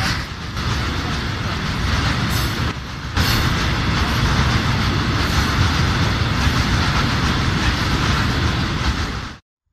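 Freight train of tank wagons rolling past at close range, a loud steady rumble of wheels on rails. The sound cuts off abruptly near the end.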